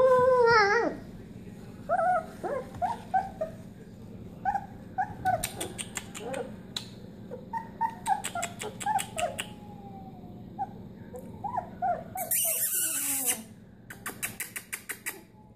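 Young Australian Shepherd puppy whimpering: a loud whining cry that rises and falls at the start, then many short, high squeaks. Runs of rapid clicking come in between, with a brief hiss near the end.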